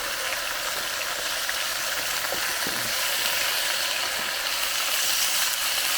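Chicken pieces frying in hot fat in a cast iron pan, a steady sizzle, with a couple of faint knocks a little past the middle as the pieces are moved.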